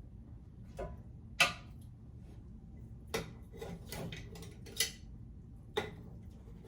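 Scattered clinks and knocks of kitchen utensils and glass canning jars as ribs are packed into a jar, about six separate taps with the sharpest about a second and a half in.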